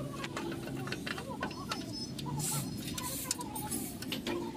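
Scattered sharp metal clicks and taps from hand work on a truck's front brake backing plate, over a low steady hum.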